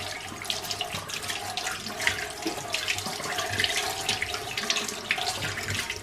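Tap water running over a bunch of bananas and splashing into a stainless steel sink as they are rinsed, a steady rush with irregular splashes.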